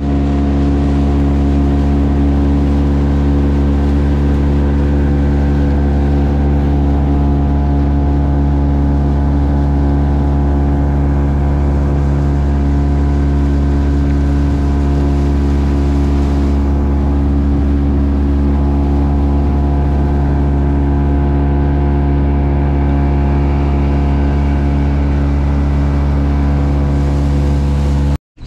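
Motorboat engine running at a steady speed, with an even, unchanging drone.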